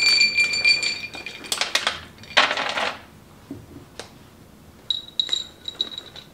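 Almonds poured from a measuring cup into a roasting pan: a ringing clink as the cup strikes, a short rattle of nuts about two and a half seconds in, then more clinks with a ringing tone near the end.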